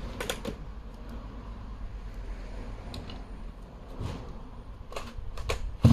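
Scattered clicks and knocks of a vintage 110cc chainsaw being handled and readied to start, then, right at the end, the engine bursts loudly into life.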